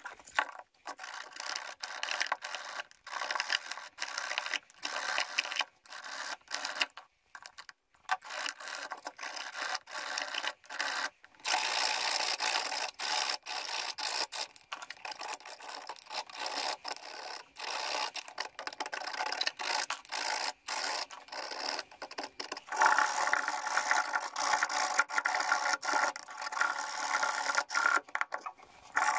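Flat metal blade scraping and rubbing against the aluminium back plate of a powered subwoofer amplifier in short, irregular strokes. The strokes are sparse with pauses at first, run more steadily from about twelve seconds in, and get louder near the end.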